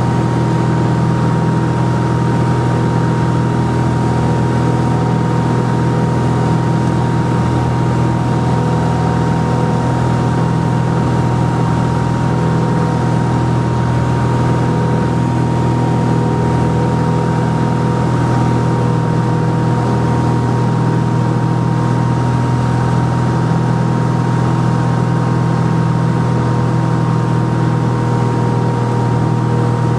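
Cabin drone of a Cessna 182RG's six-cylinder piston engine and propeller in steady flight: a loud, even low hum with a thin steady whine above it.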